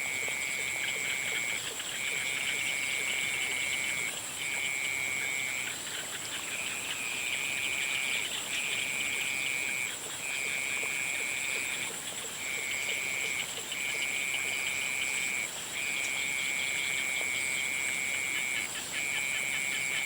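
A chorus of frogs calling in long, even trills of a second or two each, with brief breaks between them, over a constant high-pitched whine.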